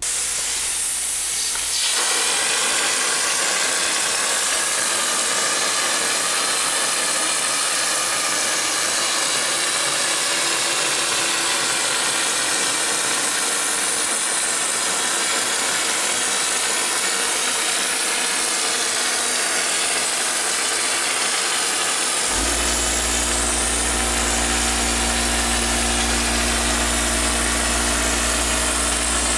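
Compressed air hissing steadily through a wallboard hopper spray gun as it sprays thin acoustic ceiling texture. About three-quarters of the way in, the air compressor's motor kicks in, adding a steady low hum under the hiss.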